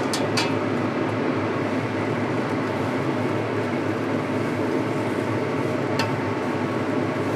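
Steady stovetop cooking noise with a low hum from a pot of mint-leaf egg and pork soup on the heat. A few light clicks come near the start and once about six seconds in.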